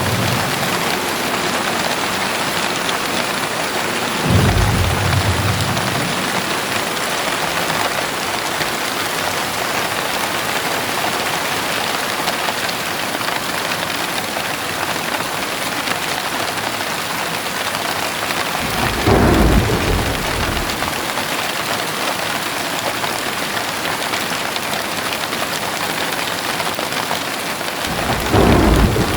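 Heavy rain falling steadily, with three short low rumbles of thunder: about four seconds in, about nineteen seconds in, and near the end.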